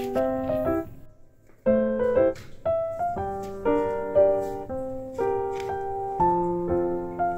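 Background piano music. It drops away to a brief near-silent gap about a second in, then picks up again.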